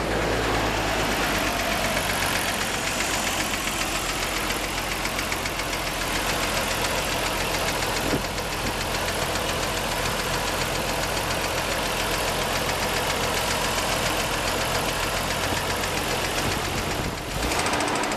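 Nissan R32 Skyline Autech Version's RB26DE straight-six engine running with a rapid, even ticking knock. This is the abnormal engine noise (異音) the clip documents.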